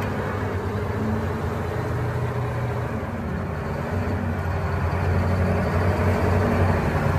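Caterpillar 988B wheel loader's diesel engine running steadily as the loader drives carrying a marble block on its forks: a continuous low drone that grows a little louder toward the end.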